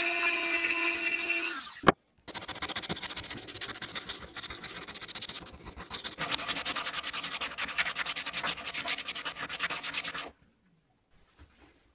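A Dremel rotary tool runs with a steady whine for under two seconds, then cuts off with a sharp click. After that, a blade and sandpaper scrape and rub on the wooden block in fast back-and-forth strokes for about eight seconds, stopping shortly before the end.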